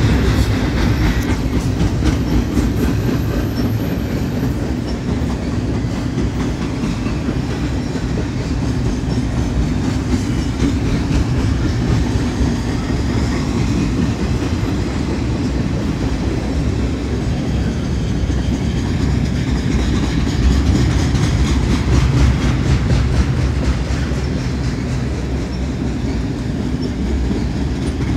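Double-stack container cars of a BNSF freight train rolling past close by: a loud, steady noise of steel wheels on the rails, with faint regular clicking over the rail joints.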